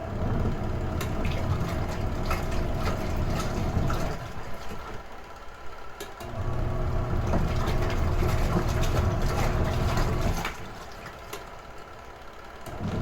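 Retro-style washing machine agitating a load: its motor and churning water run for about four seconds, pause for about two, then run again in a repeating on-off wash cycle.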